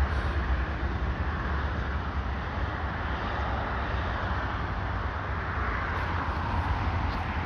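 Steady outdoor background noise: a low rumble under a broad, even hiss.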